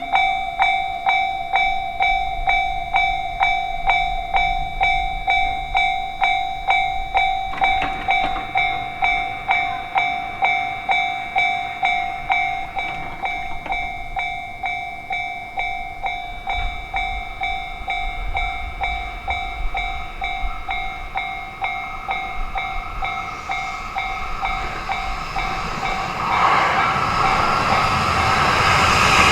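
Japanese railway crossing bell ringing in even strokes, about one and a half a second, to warn of an oncoming train. About three quarters of the way in, the noise of an approaching limited express train swells, drowning the bell and loudest at the end.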